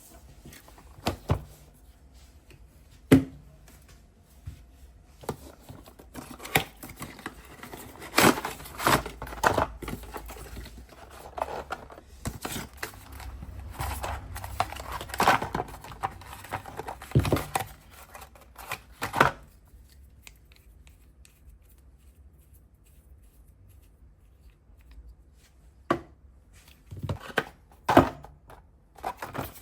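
Scattered knocks, clicks and rustling of things being handled, busiest in the middle with a quiet stretch before a few last knocks near the end.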